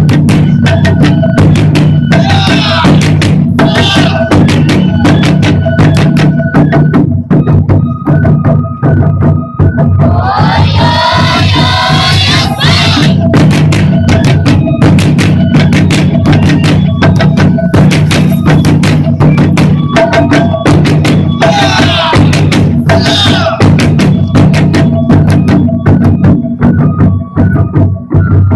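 Japanese taiko drum ensemble playing a dense, continuous rhythm of rapid strokes over a steady deep drum resonance.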